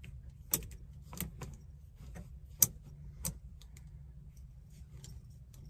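Plastic clothes hangers clicking and clacking against a wire closet rod as garments are pushed along it: a handful of sharp, separate clacks, the loudest about two and a half seconds in.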